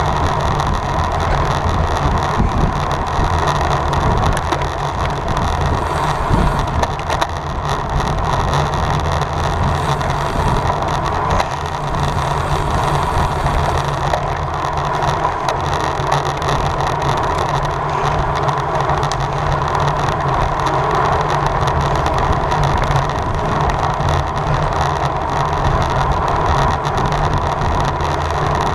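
Steady rush of wind and road noise from a road bicycle ridden at race pace, with tyre and drivetrain hum, heard from the rider's own bike.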